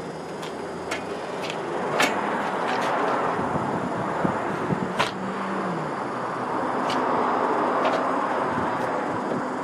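Road traffic passing, the noise swelling twice as vehicles go by, with a few sharp clicks on top.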